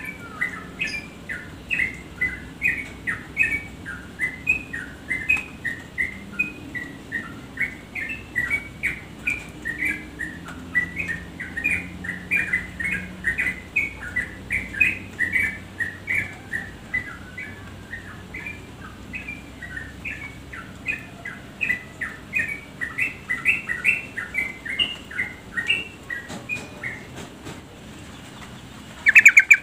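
Female yellow-vented bulbul (trucukan) calling: a long, rapid run of short chattering chirps, several a second, that stops a couple of seconds before the end, followed by one short, much louder burst.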